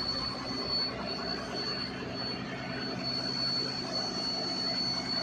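Diesel engine of a crawler piling rig running steadily at close range, with a thin, steady high whine over it.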